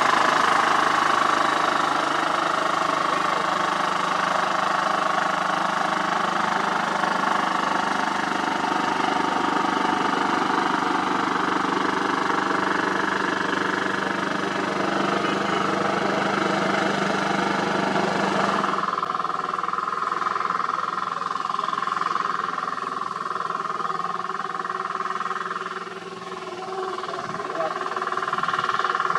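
Heavy diesel road-paving machinery running steadily, with a sudden change in the sound about two-thirds of the way through.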